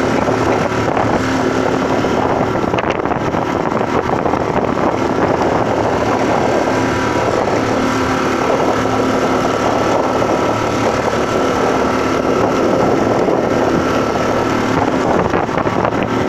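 Small open motorboat under way on choppy water: its motor runs steadily under a constant rush of wind on the microphone.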